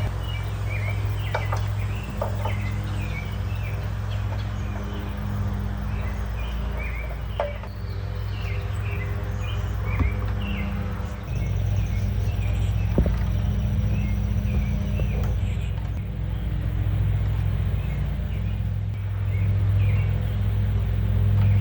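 Birds chirping in quick, repeated short notes over a steady low hum.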